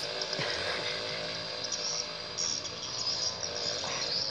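A steady mechanical hum, with insects chirping high above it from about two seconds in.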